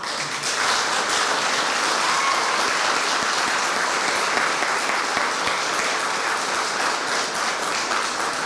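Audience applauding: many people clapping, starting suddenly and holding steady throughout.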